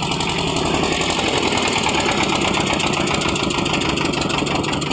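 Air-cooled twin-cylinder diesel engine of a ship's emergency fire pump running steadily, with a fast, even beat.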